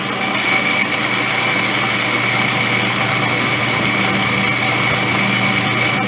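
Metal lathe running steadily while boring out a hole in a metal part, with a steady high whine over the machine's hum.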